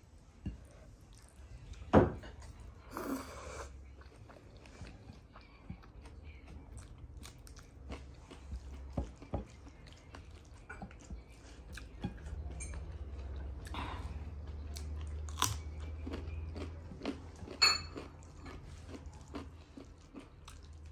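A person chewing and eating rice and curry by hand, with wet mouth sounds and scattered crunches and clicks. The loudest crunch comes about two seconds in, and another near the end.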